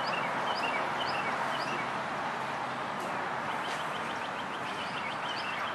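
Small birds chirping over steady background noise. A few spaced two-note chirps come in the first couple of seconds, then a quick run of short notes about two-thirds of the way through.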